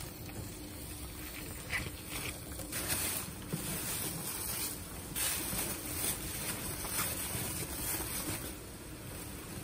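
Water running from a tap into a black plastic bag, then the wet bag crinkling and rustling as rubber-gloved hands squeeze and twist it shut.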